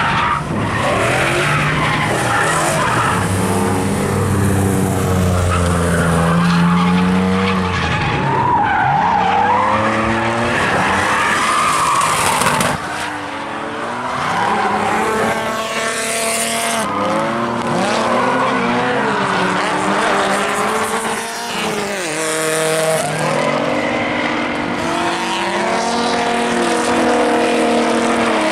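Drift cars sliding with tyres squealing, their engines revving up and down. Several engine notes rise and fall over one another throughout.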